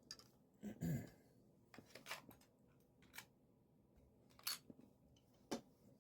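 A handful of light clicks and knocks of small hard parts being handled, spaced irregularly, the loudest about a second in.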